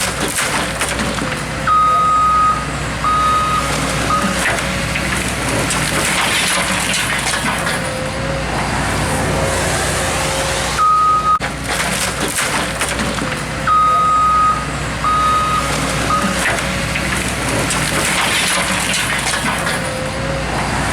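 Heavy demolition machinery with its diesel engine running steadily and a high warning alarm beeping in short irregular groups. Swells of crunching and rumbling come from the building being broken up.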